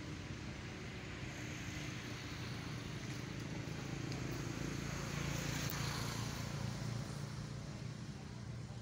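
A motor vehicle passing on a nearby road: a steady low engine hum with tyre noise that swells to its loudest a little past the middle and then fades.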